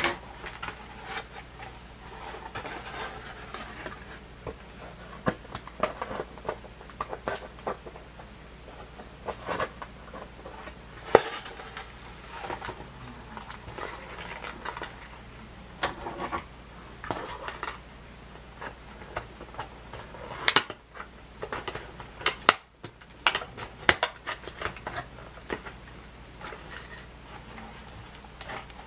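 Hands handling hard plastic toys and packaging: irregular clicks, clatters and scrapes, with a few sharper knocks.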